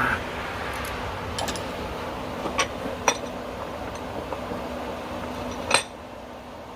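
Metal tools and small parts clinking and tapping as they are handled, half a dozen separate sharp clinks with the loudest one near the end, over a steady faint hum.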